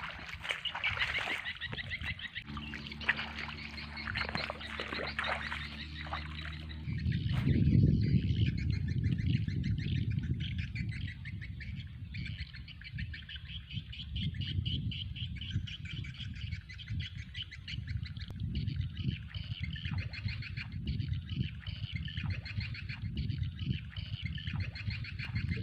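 A steady chorus of fast, high-pitched animal chirping, over a low rumble. From about 2.5 to 7 seconds a low, even hum joins in, and the rumble swells around 8 seconds.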